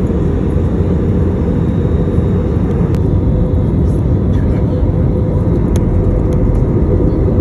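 Jet airliner cabin noise by the wing engine: a steady, deep rumble of engines and airflow with a constant hum, and a couple of faint clicks.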